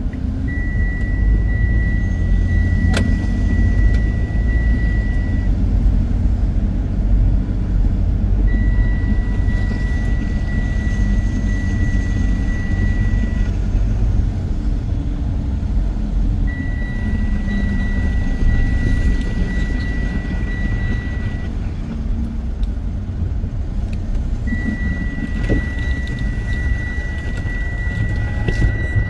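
Steady low rumble of a vehicle's engine and road noise heard inside the cab while creeping in traffic. Over it a steady high electronic warning tone sounds for about five seconds, stops for about three, and repeats four times.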